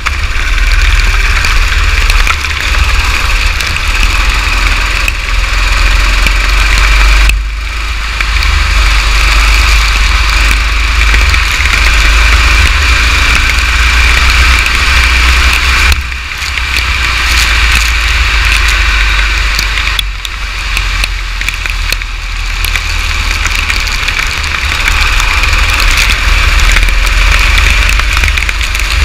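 Go-kart engine running as the kart laps a wet track, heard through the onboard camera with rain and wind hiss on the microphone; the sound dips briefly a few times.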